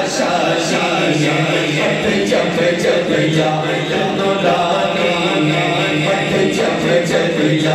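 A man's voice chanting Islamic devotional verses into a microphone through a loudspeaker system, in long held notes with slow melodic turns over a steady low drone.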